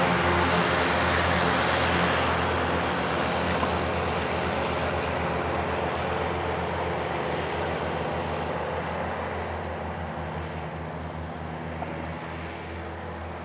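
Light single-engine propeller plane climbing away after takeoff, its steady engine sound slowly fading.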